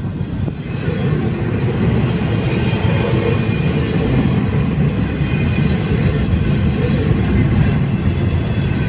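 Empty flatcars of a wind turbine train rolling past, their wheels making a steady rumble and rattle on the rails.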